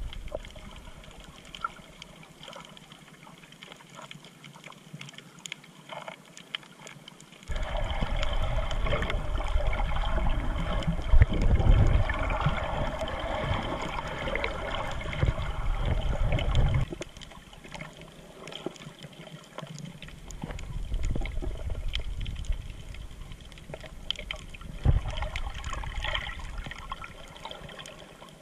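Water sloshing and rushing, heard underwater through an action camera's housing, with faint crackles throughout. It gets much louder for about ten seconds in the middle, then drops back.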